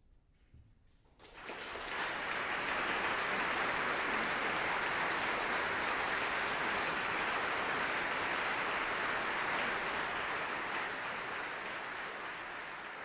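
A concert-hall audience breaks into applause about a second in, after a short hush that follows the end of the music. The clapping is dense and steady.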